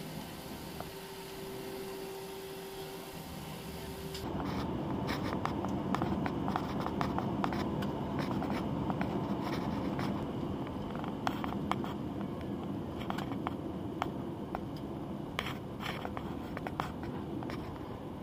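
Jet airliner heard from inside the cabin during its takeoff run. A quieter steady hum with a faint tone gives way, about four seconds in, to a louder steady rumble of engines and wheels on the runway, with frequent light rattles and knocks through it.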